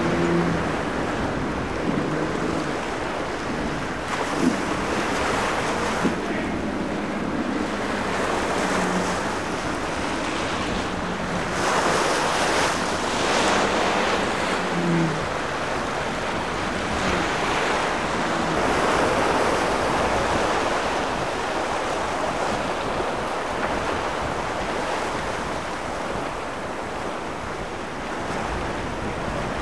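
Choppy inlet water and breaking waves, with wind buffeting the microphone. Under it, the steady hum of a boat's outboard motors is heard through about the first half, then fades.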